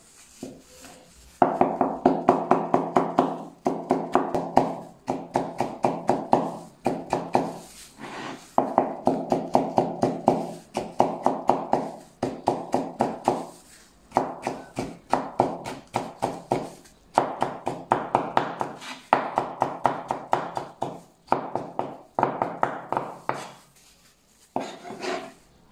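Cleaver rapidly chopping cucumber into fine shreds on a wooden chopping board: quick, even knife strokes in runs of a second or two with brief pauses between them.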